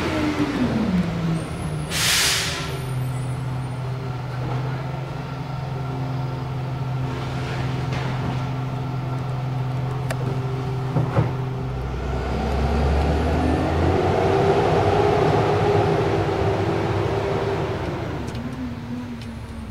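Garbage truck's diesel engine running, with a short hiss of its air brakes about two seconds in. The engine revs up in the second half, holds for a few seconds, and drops back near the end.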